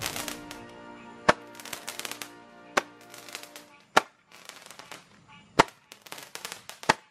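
Roman candles firing, a sharp pop about every second and a half (six in all), with crackling sparks between shots and music playing underneath.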